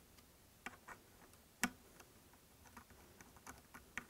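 Faint, scattered small clicks and ticks of metal scope-ring caps and screws being handled by hand on a rifle, the sharpest click about one and a half seconds in.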